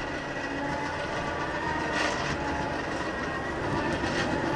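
Forge air blower forcing air into a freshly lit forge fire: a steady motor whine over a rush of air, slowly getting louder.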